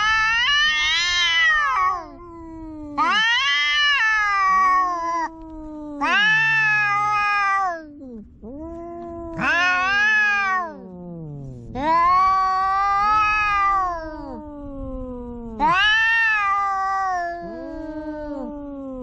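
Domestic cats caterwauling in a standoff: long, drawn-out high yowls about every three seconds, each swelling and bending in pitch, with lower moaning yowls sliding downward between them. This is the kind of threat yowling cats trade before a fight.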